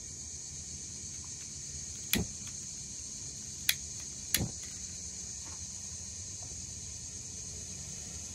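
Three sharp clicks, about two seconds in, near four seconds, and just after, as a long utility lighter is sparked at a burner of a Coleman propane camp stove to light it. A steady chirring of insects runs behind.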